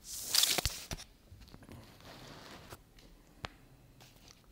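A brief rustling noise close to the microphone, lasting under a second, with two light clicks in it, then a single sharp click about three and a half seconds in.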